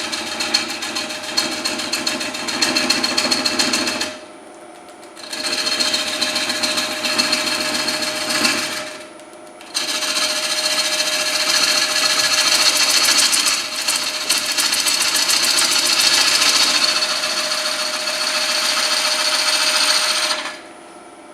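A turning tool cutting the outside of a wet hard maple bowl blank spinning on a cast-iron Stratos XL wood lathe, in three passes: the tool lifts off about four seconds in and again near nine seconds, then makes one long cut that stops shortly before the end. The lathe keeps running with a steady hum between the cuts.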